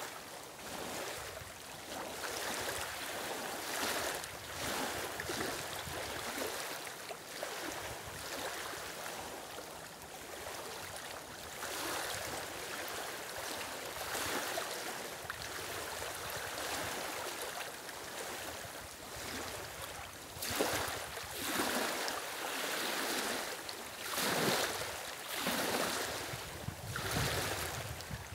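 Small waves lapping and washing in over the stones and mud at a lake's reedy edge, in repeated surges that grow stronger and more distinct in the last third.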